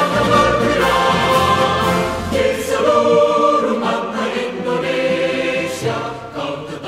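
Background music: a choir singing long held chords over a bass line.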